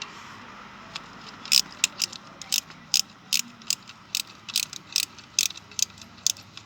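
Hand ratchet wrench clicking in quick back-and-forth strokes, starting about a second and a half in, roughly two to three clicks a second.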